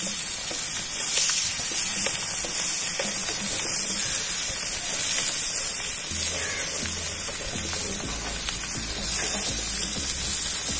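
Masala-marinated fish pieces frying in hot oil in a pan: a steady, high sizzle with a few light clicks.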